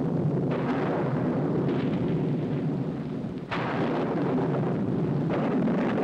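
Thunder rumbling steadily, with sharper claps breaking in every second or two.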